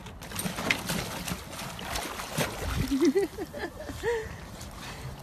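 Water sloshing and splashing at a wooden dock, with scattered clicks. About three seconds in there is a short wavering cry, then another rising and falling call.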